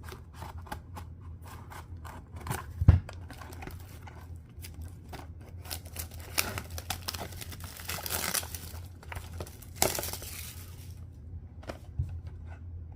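A trading-card hobby box and its plastic wrap being opened by hand: crinkling and tearing, with a sharp knock just under three seconds in and a denser stretch of rustling and tearing around the middle.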